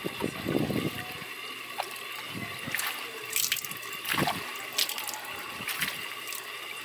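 Water splashing and dripping as a dip net is worked through a fish tank to scoop out tilapia, with irregular splashes every second or so.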